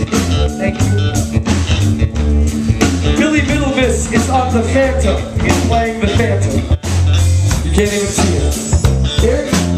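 Live rock band playing: electric bass, electric guitar and drum kit.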